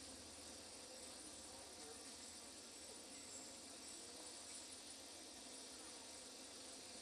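Faint, steady background ambience: an even hiss with insects buzzing.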